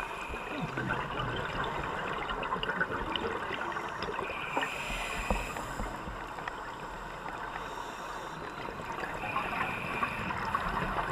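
Scuba divers' regulator breathing and exhaled bubbles heard underwater, over a constant fine crackle. Two longer breaths come about four seconds in and again near nine seconds.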